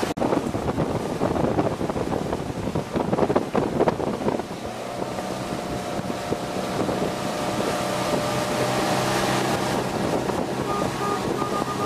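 Wind buffeting the microphone, with a steady engine hum that settles in about four seconds in.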